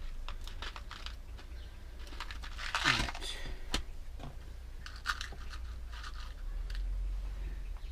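Rustling and crinkling of packaging with scattered small clicks, as a packet of screws is handled and opened.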